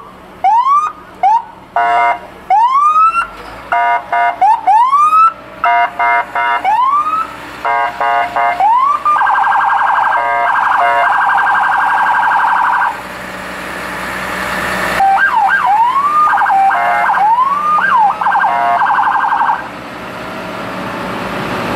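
Electronic emergency-vehicle siren cycling through its tones: short rising whoops alternating with brief horn-like blasts, then a rapid warble for a few seconds. After a pause, whoops and warble return briefly before it stops.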